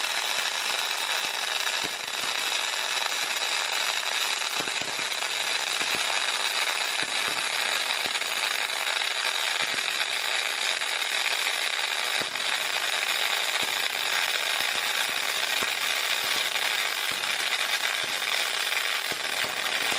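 Semi-automatic gas-shielded arc welding: the welding arc crackles steadily as a bead is laid.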